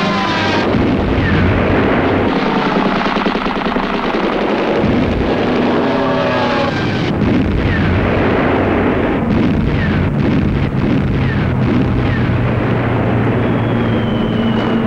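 Wartime aerial bombing: warplane engines drone while falling bombs whistle down. Several times between about 7 and 12 seconds in, a short falling whistle is followed by an explosion. A steady engine hum takes over near the end.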